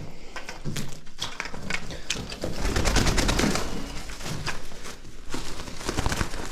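Feral pigeons cooing inside a grain bin, with a flurry of rapid clattering and scuffling that is loudest from about two and a half to four seconds in.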